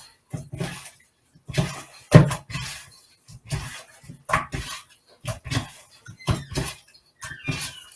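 Kitchen handling noise: irregular knocks, taps and clatter of seasoning containers, utensils and cookware being picked up and set down, the loudest knock about two seconds in.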